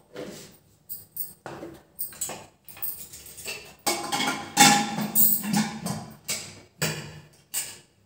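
Metal clinks and knocks from handling an aluminium pressure cooker on a gas stove, with its lid being fitted, in a run of separate strokes. The loudest come about four to five seconds in, one with a short metallic ring.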